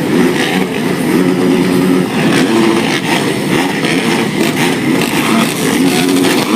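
Motocross motorcycle engines running and revving together, several bikes at once with pitches that hold and then shift.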